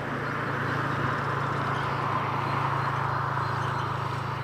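Small utility vehicle's engine running steadily as it drives away, a low even hum.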